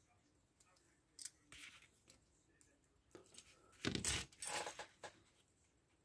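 Faint small metallic clicks, taps and scraping from a Westclox Baby Ben alarm clock movement's brass plates and pillar nuts being handled and fitted back together, with a louder clatter about four seconds in.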